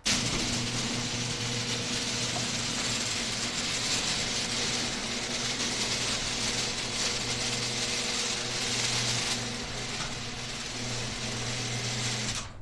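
Electric garage door opener running as it lowers an overhead sectional garage door: a steady mechanical hum and rattle that starts suddenly and cuts off near the end as the door closes.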